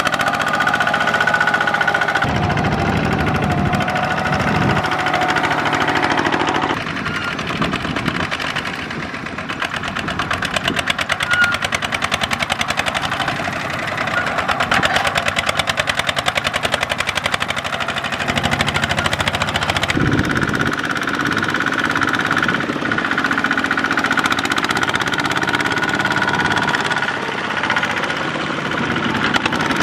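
Single-cylinder diesel engine of a two-wheel walking tractor (power tiller) running under load, a fast steady chugging, as it hauls a trailer through mud. Its note shifts a few times.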